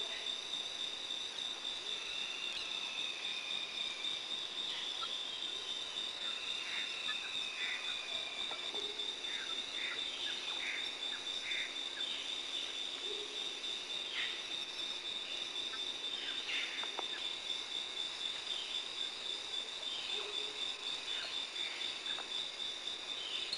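Amazon rainforest insect chorus: a steady, fast-pulsing high trill throughout, with scattered short chirps and a few falling whistles from other animals, clustered near the middle.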